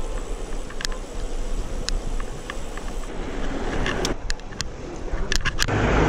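Riding noise from a bicycle on a paved street: steady wind and road rumble on the microphone, with scattered light clicks and rattles, and a louder rush of noise near the end.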